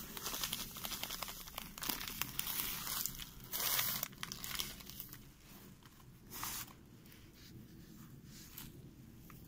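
Coarse cooking salt pouring from a plastic bag onto beef in a plastic tray, the bag crinkling and rustling, for the first four seconds or so; then quieter scraping as a hand presses the salt over the meat.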